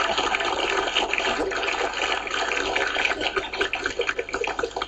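Studio audience applauding, the clapping slowly thinning out toward the end.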